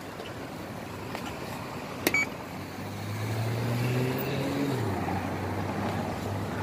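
Road traffic at a city intersection. A vehicle engine passes close from about three seconds in, getting louder, and its note drops as it goes by. A short sharp click with a brief beep comes about two seconds in.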